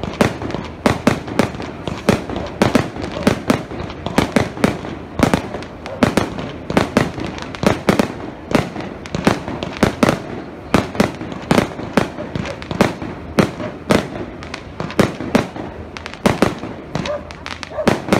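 Aerial fireworks shells bursting in a rapid series of loud bangs, two or three a second, with no let-up.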